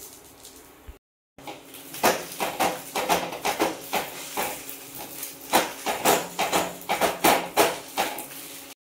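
Clinks and knocks of metal kitchenware, about two to three a second.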